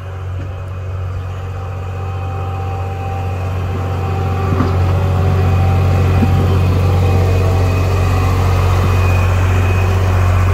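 Skid steer engine running steadily, growing louder over the first few seconds as the machine comes closer, then holding steady; the engine is leaking coolant.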